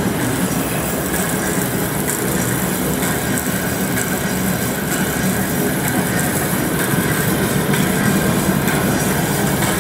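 Grob vertical band saw running steadily: its motor, wheels and blade give a constant mechanical hum with a low drone, smooth and even, a sign of a motor in good condition.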